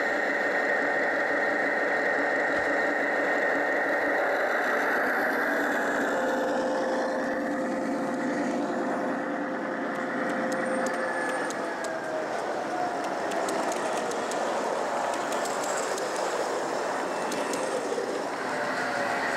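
Gauge 1 (1:32 scale) model train running on the layout: a steady running hum with humming tones, softening after about six seconds. Faint light clicks come in the second half.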